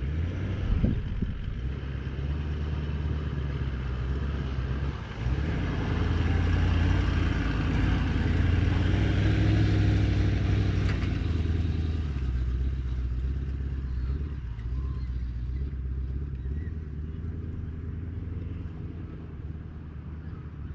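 Four-wheel drive's engine running as it drives past close by across a grass paddock, getting louder about five seconds in, loudest midway, then fading as it pulls away.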